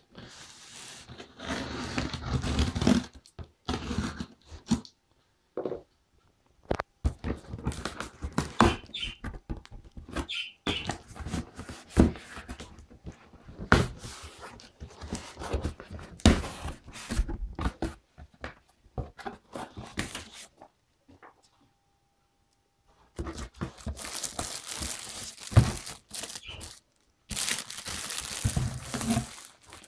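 A cardboard shipping box being opened by hand: packing tape tearing, cardboard flaps scraping and knocking, with irregular rustles and thumps. There is a short pause about two-thirds through, then a dense stretch of rustling and crinkling as the packed contents are handled.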